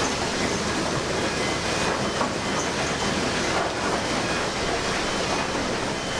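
Steady, dense mechanical rumble and rattle, like heavy industrial machinery or rail cars running.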